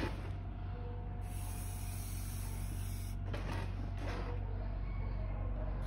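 Pencil scratching lines onto plywood: a short stroke at the start and a couple more about three and a half seconds in. Under them is a steady low hum.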